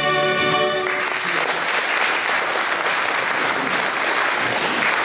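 A Scottish fiddle orchestra holds its final chord, which stops about a second in, and the audience breaks into applause.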